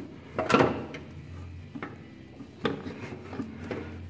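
Rolls-Royce Silver Cloud starter motor clunking and scraping, metal on metal, as it is forced up into its mounting hole at the back of the engine: one loud knock about half a second in, then a few lighter knocks and rubs.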